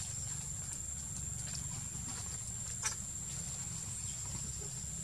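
Steady forest background: a constant thin high-pitched whine over a low rumble, with one short faint click or squeak nearly three seconds in.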